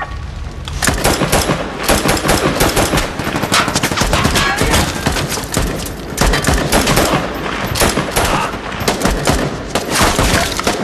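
Rapid gunfire from rifles in a firefight: dense runs of shots in quick succession, easing briefly about halfway before picking up again.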